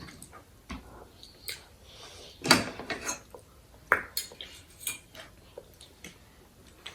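Eating utensils clinking and scraping against plates or bowls: scattered light clinks, the loudest about two and a half seconds in.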